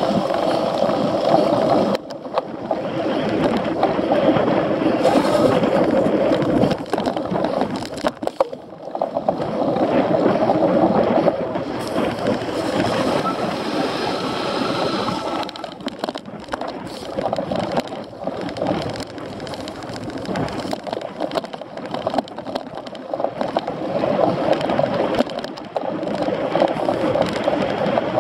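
Cyclocross bike being raced over rough ground, heard from a camera mounted on the bike: a rough rushing noise of tyres and rattling drivetrain that swells and dips as the terrain changes.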